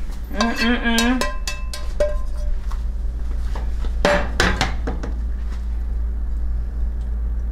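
Metal utensils knocking and clinking against ceramic dinner plates as food is plated, a few sharp clinks with the loudest about four seconds in, over a steady low hum.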